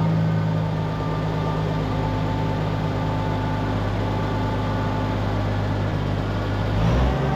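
Oliver 1650 tractor engine running steadily and smoothly on a test run, an engine that has been getting coolant in its oil. Near the end its note briefly rises and changes as the speed shifts.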